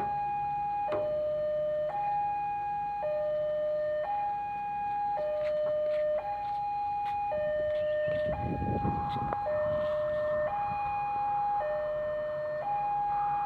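Railway level-crossing warning alarm sounding a steady two-tone hi-lo pattern, a higher and a lower tone alternating about once a second each. A brief rush of noise rises under it about eight seconds in.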